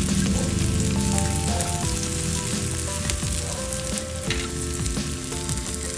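Chopped red onions sizzling as they fry in an electric baking pan, with a few light clicks as they are stirred around.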